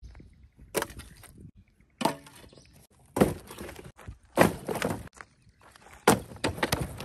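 Axe chopping dry sticks: five heavy blows, about one every second and a quarter, the last followed by a few lighter knocks.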